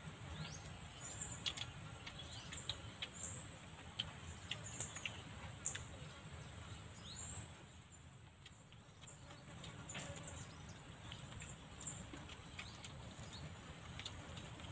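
Faint outdoor ambience: scattered short bird chirps over a steady high-pitched insect drone, with a few small clicks.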